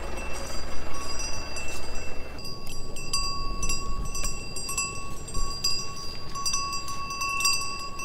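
Bells on grazing cows clinking and ringing irregularly, several bell tones overlapping, with a low rumble under them for the first couple of seconds.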